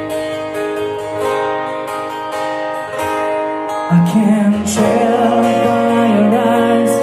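Recorded song played back through Wharfedale Diamond 9.6 loudspeakers: acoustic guitar picking and strumming, with a singing voice coming in about four seconds in.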